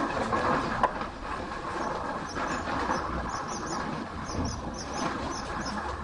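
Bulldozer working on a demolition: a steady mechanical noise, with a sharp knock about a second in and a run of quick high chirps from about two seconds in.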